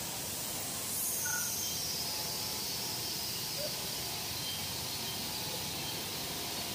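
Industrial biscuit production line machinery running: a steady noisy hiss and hum with no clear rhythm.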